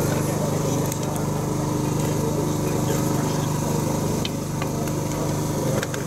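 Steady hum of a running machine, with a few faint ticks in the second half.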